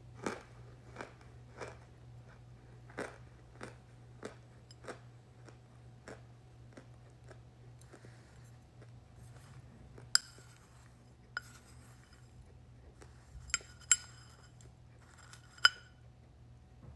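Chunks of flavored cornstarch being bitten and chewed. Soft crunches come in a steady rhythm for the first few seconds, then a handful of sharper, louder crunchy snaps follow later on.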